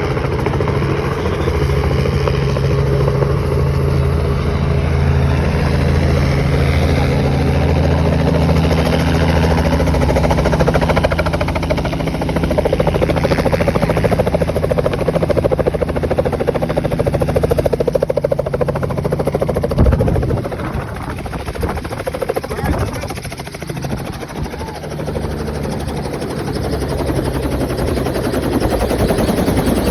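Helicopter engine and rotor running loud and steady. About twenty seconds in there is one sharp knock. After it the sound drops and turns rougher, then rises again near the end.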